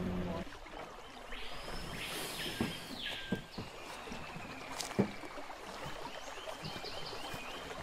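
A boat's outboard motor hum stops just as the sound begins. A few sharp knocks follow as people step about in aluminium boats. A bird gives two long arching whistles in the first few seconds, and near the end a short chirp repeats about twice a second.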